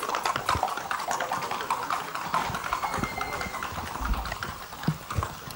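Rapid, even hoofbeats of a Colombian paso horse moving at its gait, dense at first and thinning out after about two seconds, followed by a few dull thumps.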